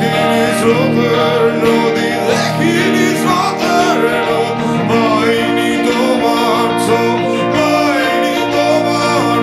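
Band music: a song played on guitars, with singing.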